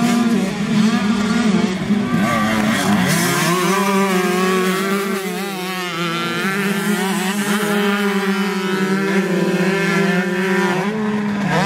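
Several small dirt-bike engines racing together, their revs rising and falling as the riders accelerate and back off, over a steady low drone.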